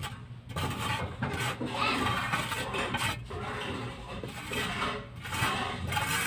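Mason's trowel scraping and rubbing against a rough cement wall.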